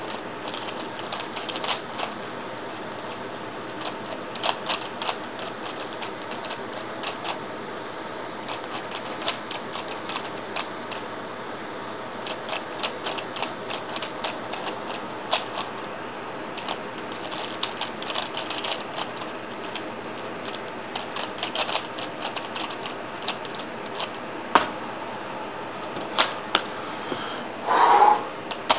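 3x3 Rubik's cube being turned by hand: irregular runs of quick plastic clicks as the layers turn, over a steady background hiss. Near the end come a few sharper knocks and a louder burst as the cube is set down.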